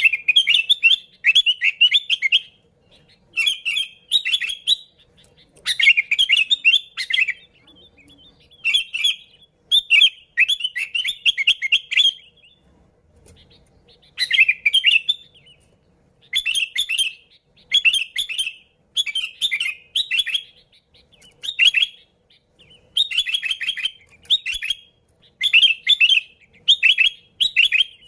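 Sooty-headed bulbul (kutilang) singing, with short chattering phrases of quick chirps following one another after brief pauses and one longer pause about halfway through.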